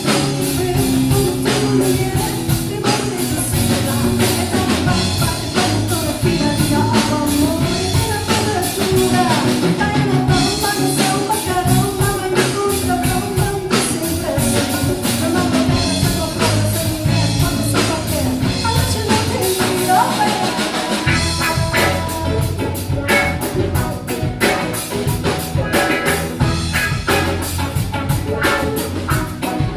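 A samba band playing: dense, driving percussion with voices singing over it.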